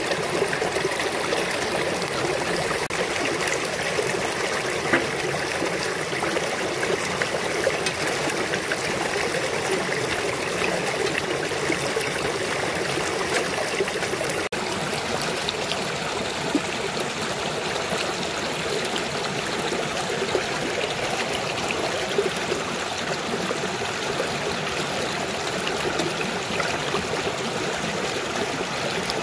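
Shallow mountain stream running over rocks and a small cascade: a steady rush with trickling and splashing.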